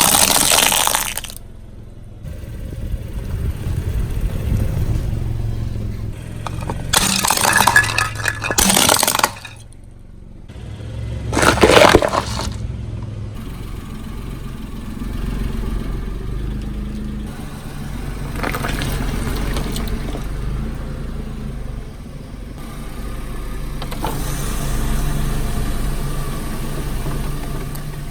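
Objects being crushed under a car's tyres: several loud cracking, breaking bursts in the first half. Then the car's engine runs on low and steady.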